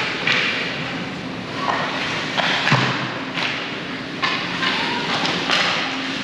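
Youth ice hockey play in a rink: scattered knocks and thuds of sticks, puck and boards over a steady hiss of skates on the ice.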